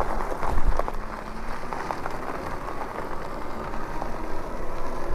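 Lectric e-bike tyres rolling over gravel: a steady crackling crunch over a low rumble.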